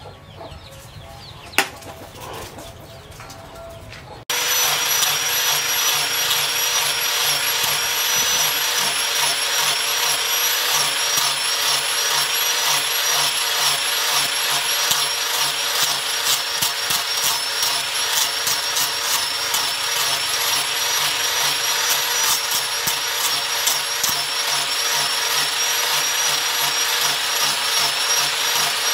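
Electric angle grinder with a sanding disc running against the steel blade of a forged knife, a loud steady high whine with a rasping edge as the disc works the metal. It starts abruptly about four seconds in, after a quieter stretch with one sharp tap.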